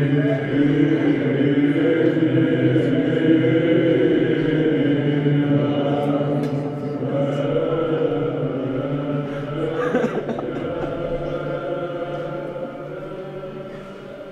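Orthodox funeral chant: voices chanting a slow melody over a held low drone, gradually fading toward the end.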